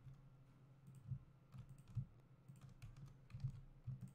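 Faint computer keyboard keys and mouse buttons clicking at irregular moments, a handful of scattered clicks over a low steady hum.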